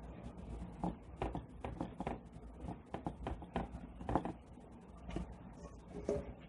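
Irregular soft taps and scrapes, about a dozen, of bath bomb mixture being pressed and packed by hand into donut molds.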